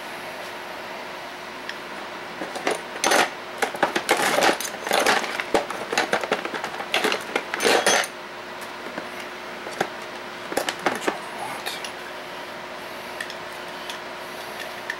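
Hand tools clicking and scraping against metal in quick, irregular clusters, from about two to eight seconds in and again briefly around ten to eleven seconds, as a stuck metal part of a lamp fixture is forced loose. A faint steady hum runs underneath.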